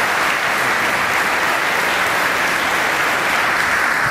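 Audience applauding steadily in a school gymnasium.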